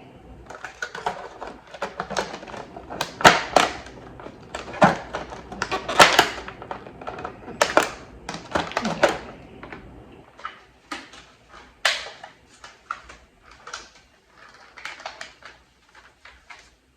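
Clicks, knocks and clattering of a takeout container and its contents being handled and pushed as something is forced to fit inside. The loudest knocks come about three, six and eight seconds in, and the clicks thin out after about ten seconds.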